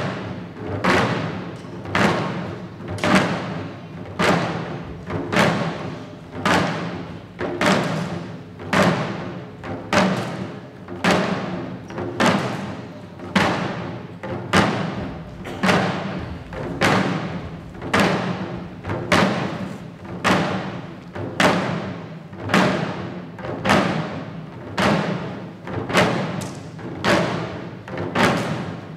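Shishi odori deer-dancers' chest-worn drums beaten together in a steady rhythm, a heavy stroke about once a second with lighter strokes between.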